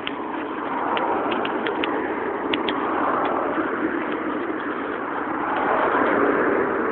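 Strong gusty wind, a steady rush that swells and eases in waves, with a few light ticks in the first few seconds.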